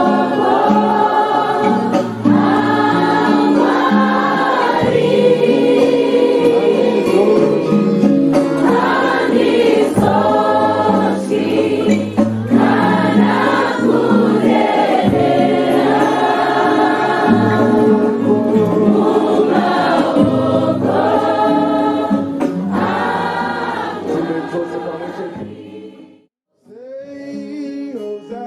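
A choir singing a gospel worship song. It fades out about 26 seconds in, and after a brief gap a quieter song begins.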